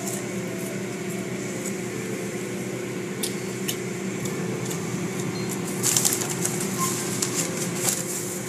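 Automatic car wash heard from inside the car: water spraying and cloth wash strips slapping and flapping against the body under a steady machine hum, with a run of louder slaps about six seconds in.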